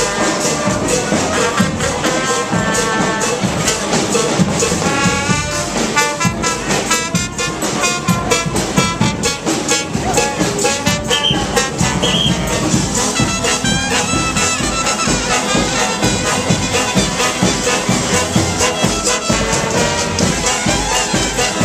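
Street brass band playing: trumpets and trombones over drums keeping a steady beat.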